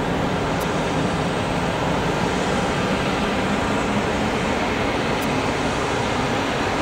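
Airbus A320 airliner's jet engines at takeoff power as it climbs away: a steady, even rushing noise with no distinct tones.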